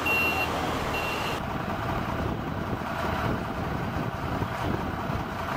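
A forklift's warning beeper sounds twice, about a second apart, over engine noise. The sound then changes abruptly to a steady low vehicle noise with no beeping.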